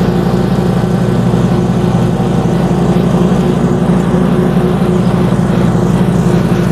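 Stand-on commercial lawn mower's engine running steadily at full throttle while cutting grass, an even drone with a constant pitch and no change in speed.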